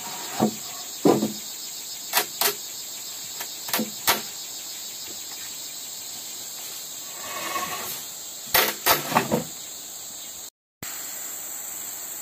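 Steady high insect drone of the forest, with scattered sharp knocks and a few duller thumps.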